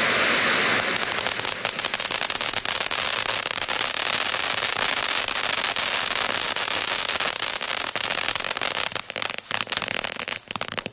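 PXF206 Volcano spark fountain burning. About a second in, its steady hiss turns to dense, rapid crackling, which thins to scattered pops and sputters out near the end as the fountain burns down.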